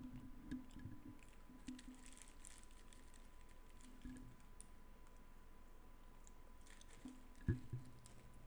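Faint scattered clicks and taps with a few soft low thumps, the loudest about seven and a half seconds in, over a faint steady high-pitched tone.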